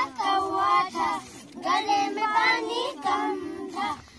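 A group of young schoolchildren singing a song together, in short phrases with brief breaks between them.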